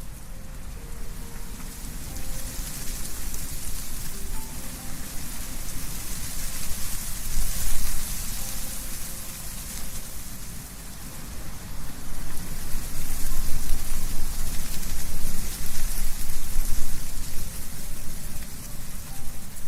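Wind blowing through trees, leaves rustling in a steady hiss with a low rumble, swelling in gusts about a third of the way in and again through the second half.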